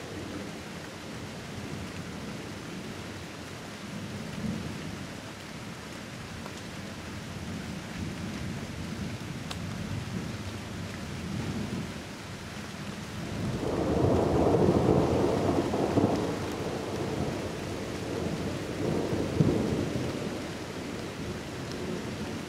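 Thunder rumbling in a thunderstorm over a steady hiss of rain. A long roll swells up about two-thirds of the way through and slowly fades, and a shorter, sharper clap follows a few seconds later.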